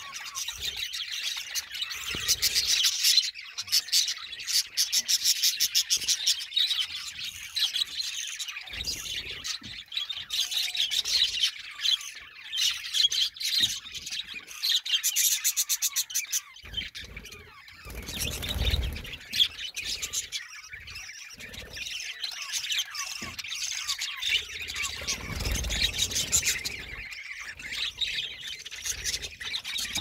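A flock of budgerigars chattering and chirping together in a dense, rapid warble, louder in stretches, with two brief low rumbles partway through.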